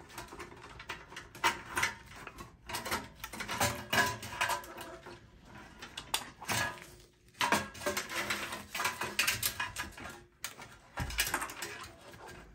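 Computer power supply being lifted and worked free of a Dell XPS 8910 desktop's sheet-steel case: irregular metal scrapes, knocks and rattles from handling, with short pauses between.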